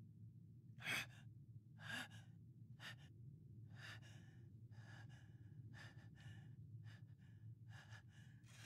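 A man's faint, effortful gasps and panting from straining hard. There are three spaced gasps in the first three seconds, then quicker breaths at about two a second.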